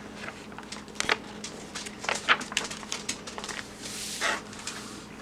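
Pages of a paperback picture book being handled and turned: a string of small paper crackles and clicks, with a soft swish of a page about four seconds in.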